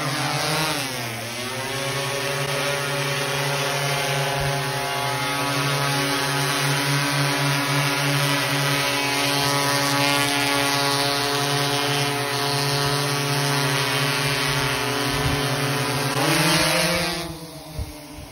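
Large quadcopter drone hovering, its rotors giving a loud, steady, buzzing hum. The pitch dips about a second in, swells up again near the end, and then the hum drops away quickly.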